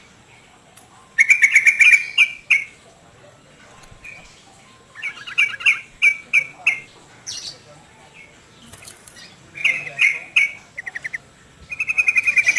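Captive songbirds chirping in several bursts of rapid, trilled notes, with short pauses between the bursts.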